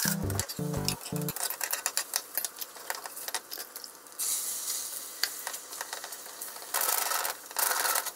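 Beaten egg sizzling in a frying pan, with small clicks of chopsticks against the pan. About four seconds in, more egg is poured in and the sizzle grows louder. Near the end the egg is stirred with chopsticks in two loud bursts of sizzling. For the first second or so, music with a stepping bass line plays over it.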